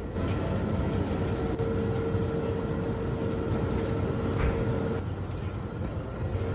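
A vehicle running, a steady low rumble with a steady whine over it that stops about five seconds in.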